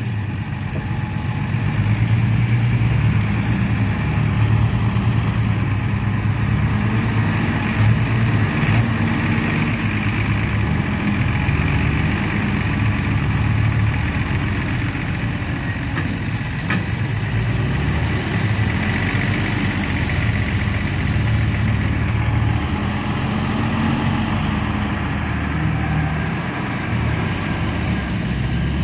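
John Deere 6140R tractor's six-cylinder diesel engine running steadily.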